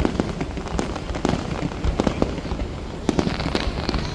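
Fireworks display going off: an irregular, rapid run of bangs and crackling pops, several a second.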